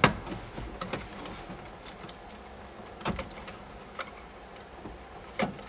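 Sharp clicks and knocks of wiring connectors being unplugged from the back of a 2007 Chevrolet Silverado's OnStar module: a loud one at the start, another about three seconds in and one near the end, with fainter ticks between.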